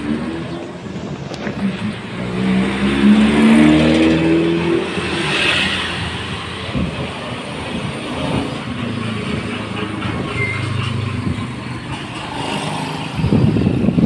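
Street traffic: a motor vehicle's engine accelerating past, its pitch rising about two seconds in, then a steadier engine hum, with a burst of rough noise near the end.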